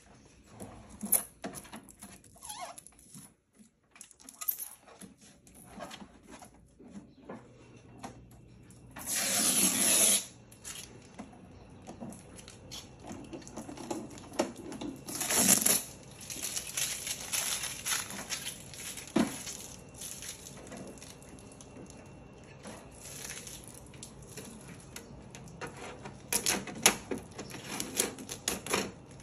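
Blue packing tape being peeled off a new HP DeskJet printer's plastic housing, with rustling of protective plastic film and clicks of the plastic lid and trays being handled. Two louder, second-long tape peels stand out about a third and halfway through, and a quick run of clicks comes near the end.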